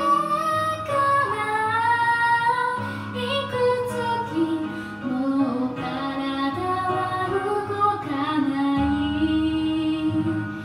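A woman sings a slow Japanese song into a handheld karaoke microphone over a backing track, holding long notes. A deeper bass comes in about nine seconds in.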